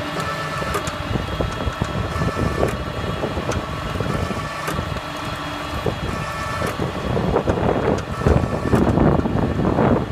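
Tractor engine running steadily, with a steady whine above it, as it carries a Robovator in-row weeder. From about seven seconds in, the sound becomes louder and noisier, with wind on the microphone.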